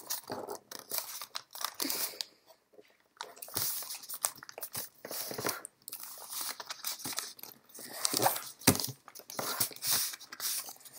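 A six-inch square of kami origami paper being folded and creased by hand on a tabletop: irregular crinkles, crackles and rustles as box pleats are collapsed and pressed flat, with a brief lull about two seconds in.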